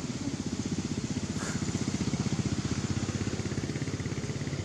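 A small engine running with a fast, even pulse, growing a little louder in the middle and easing off again.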